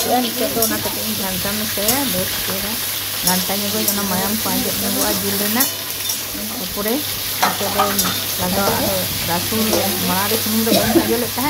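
Chicken pieces sizzling in hot oil in an aluminium kadhai while a spatula stirs and turns them, scraping and clicking against the metal pan.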